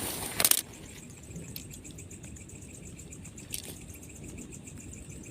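Steady rain falling, heard as a constant hiss dotted with many small drop ticks. A brief loud rustle in the first half-second comes before it.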